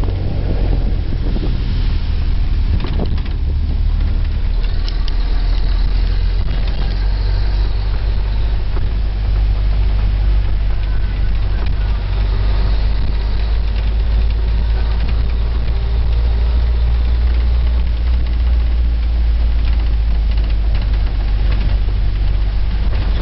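A bus driving, heard from inside its cabin: a steady, loud, deep rumble of engine and road noise, with a few brief clatters now and then.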